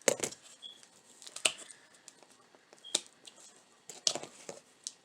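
Scissors and a spool of ribbon being handled at close range: scattered sharp clicks and short rustles, a few each second or two, as something stuck on the ribbon is cut off.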